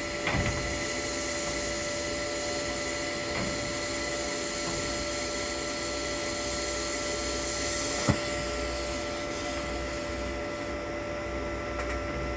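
Lift-TIG arc on a Toolion MIG-180 Pro inverter welder burning steadily as a first bead is laid: an even hiss with a steady whine. There is a sharp click about eight seconds in.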